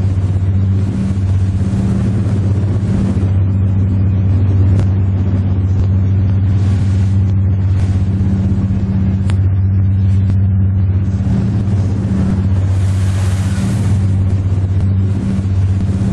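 Pilot boat's engines running steadily under way, a loud, even low drone. Bursts of rushing wind and spray come and go every few seconds over it.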